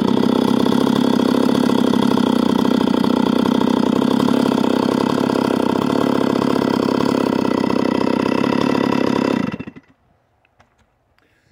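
Stihl MS 260 Pro chainsaw with an opened-up muffler and carbide 33RD chain running at steady high revs, the sound of a timed cut. About nine and a half seconds in it stops abruptly, leaving near silence.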